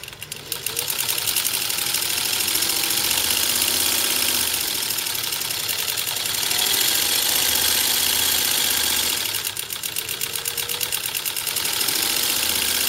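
A 1948 Singer 15-91 sewing machine running at speed on its direct-drive potted motor, its needle bar cycling in a fast, even clatter. It goes quieter for a moment about ten seconds in, then picks back up.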